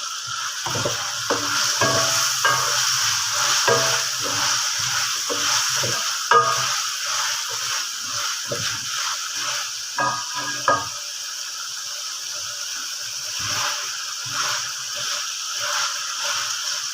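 Potatoes and masala sizzling in hot oil in a pot while a spoon stirs them, knocking and scraping against the pot over roughly the first ten seconds; after that mostly steady sizzling.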